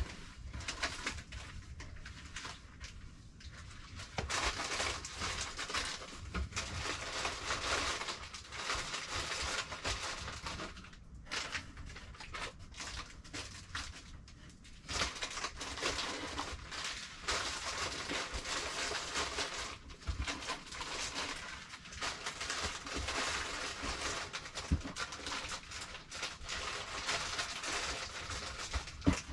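Rustling and shuffling of things being handled and sorted in cardboard boxes, in long stretches with short pauses and a few light knocks.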